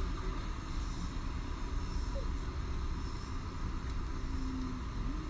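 Vehicle engine running with a steady low rumble, heard from inside the cabin.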